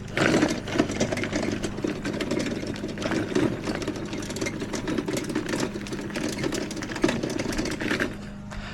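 Mowrator 2WD battery-powered remote-control mower running, with a rough, rattling clatter full of sharp ticks over a steady low hum. The clatter starts abruptly and cuts off near the end.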